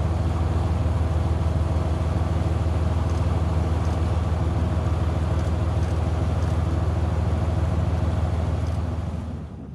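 Boat engine running steadily with a deep, even hum, dropping away near the end.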